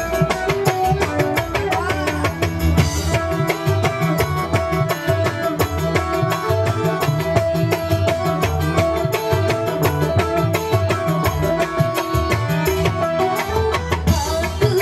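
Live dangdut band playing an instrumental passage: hand drums beat a steady quick rhythm over an electronic keyboard and low bass notes.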